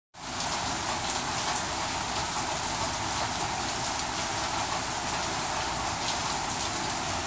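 Heavy rain falling steadily on a waterlogged lawn: a dense, even hiss, with the odd louder drop striking close by.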